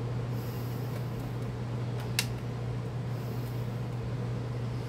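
A steady low hum runs throughout, with one sharp click a little over two seconds in.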